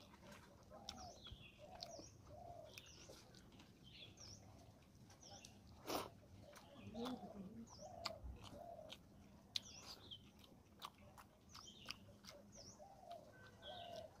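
Faint birds calling over and over, with soft clicks of fingers mixing rice and fish curry on a plate; one sharper click about six seconds in.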